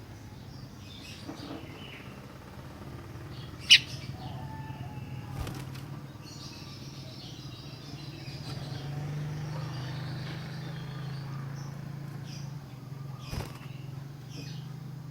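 Sooty-headed bulbul (kutilang) giving short scattered chirps, with one loud sharp note about four seconds in, over a steady low hum.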